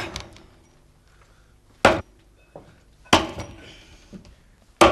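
Axe chopping into a log, three blows about a second and a half apart, each a sharp thunk with a short ringing tail.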